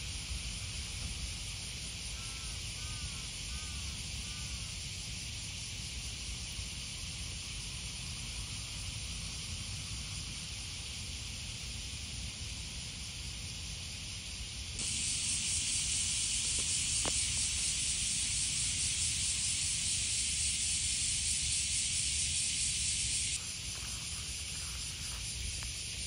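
Steady high-pitched hiss of outdoor ambience with a low rumble under it, and a few faint chirps about two to four seconds in. Midway the hiss turns abruptly much louder for about eight seconds, then drops back just as suddenly.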